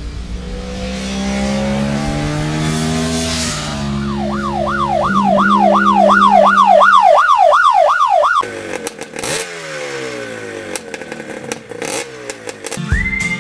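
A motorcycle engine accelerating through several gears, its note climbing and dropping back at each shift. About four seconds in, a loud siren-like warbling tone joins it, rising and falling about twice a second. It cuts off sharply about eight seconds in, leaving a falling engine note and scattered clicks.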